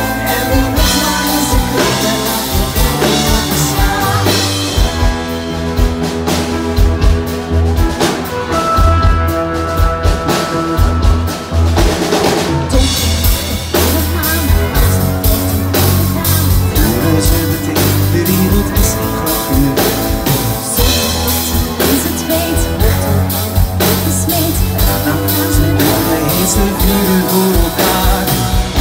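Live pop-rock band music over a stage PA, driven by a steady drum-kit beat.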